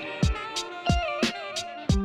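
Background music: an instrumental track with a steady drum beat, guitar and a bending lead melody.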